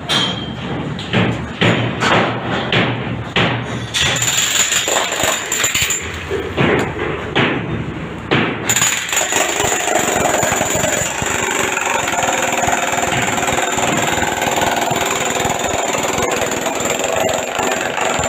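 Construction-site work noise: a run of sharp hammer strikes about two a second, then, about nine seconds in, a power tool starts and runs steadily.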